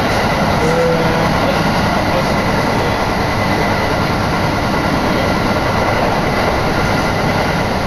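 Iwate Galaxy Railway electric local train running at speed, heard from inside the carriage: a steady, loud rumble of wheels on rail with a faint constant whine.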